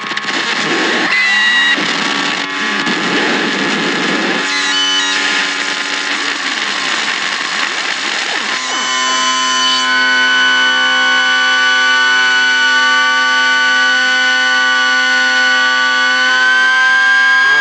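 Harsh electronic noise from Trogotronic noise boxes: a loud hiss with squealing tones and short pitch glides, which about nine seconds in switches abruptly to a steady drone of many held tones, one high tone rising slightly near the end.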